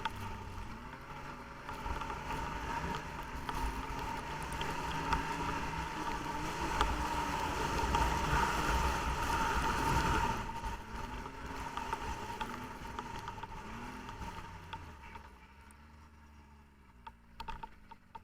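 Snowmobile engine running while riding, its pitch rising and falling with the throttle, with wind on the microphone. The sound dies down over the last few seconds.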